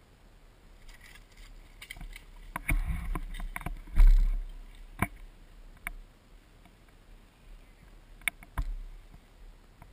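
Gun-mounted camera jostled as the player moves through brush: rustling with scattered clicks and knocks, one heavy thump about four seconds in, then a few single sharp clicks.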